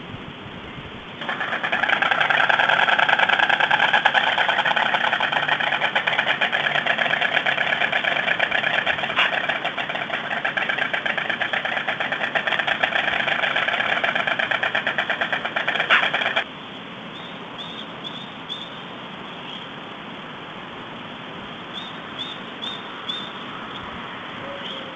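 White stork bill-clattering: a loud, fast rattle of the bill starts about a second in, runs for some fifteen seconds and stops abruptly. A few faint short high chirps follow near the end.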